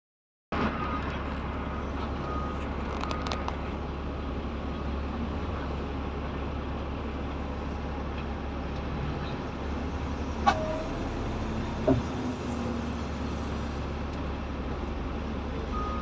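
Caterpillar 730C articulated dump truck's diesel engine running steadily at idle, heard from inside the cab, with two sharp knocks about ten and a half and twelve seconds in.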